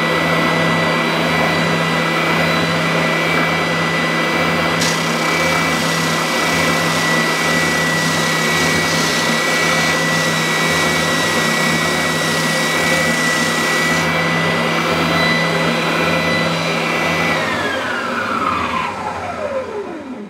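Scheppach OSM600 oscillating spindle and belt sander running with a steady high whine, quite loud, while a scrap board is worked against it. Near the end it is switched off and winds down, the whine falling in pitch as the motor slows to a stop.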